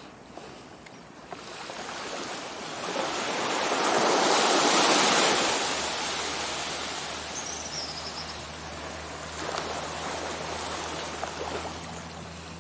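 Small waves washing up on a sandy beach, swelling to a loud wash about four to five seconds in and a smaller one near the end.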